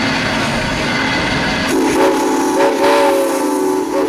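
Steam whistle of Western Maryland 2-8-0 locomotive No. 734, a chord of several notes, blown in about four blasts starting a little under two seconds in, one of them long, the last a short toot. Before it a steady rushing hiss with a low hum.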